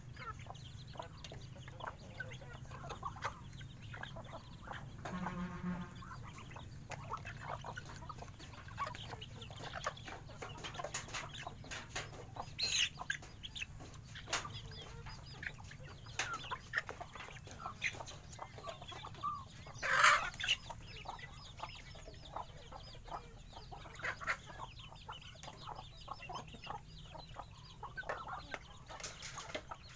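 A flock of chickens feeding alongside Muscovy ducks: many quick pecks and scuffs on bare ground with scattered clucking, one drawn-out call about five seconds in, and a brief loud squawk about twenty seconds in.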